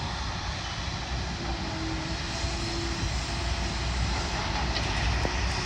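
A steady low engine drone mixed with wind buffeting the microphone, with a faint held tone about a second and a half in.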